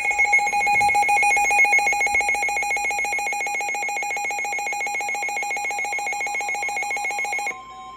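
An electronic emergency-alert tone: a loud, rapidly pulsing two-pitch ring like a telephone bell, which cuts off abruptly near the end and gives way to a quieter steady single tone.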